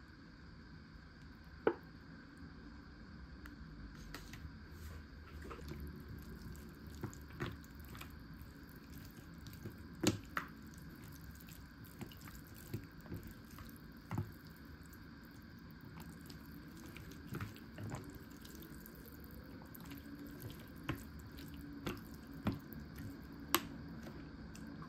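Scattered sharp clicks and light taps, about fifteen at irregular intervals, over a faint steady hum.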